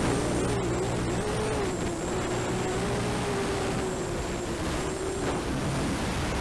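Racing quadcopter's 1806 brushless motors driving 5045 propellers: a buzzing whine that wavers up and down in pitch as the throttle changes, under a steady hiss.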